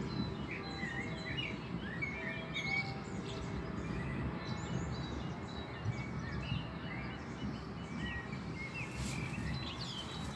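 Songbirds chirping and calling, with short chirps scattered throughout, over a steady low rumble.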